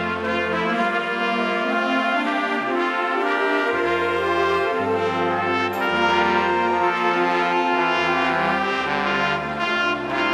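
Brass ensemble with tubas and alto saxophone playing sustained chords, a low tuba bass line moving in held notes of about a second each beneath them.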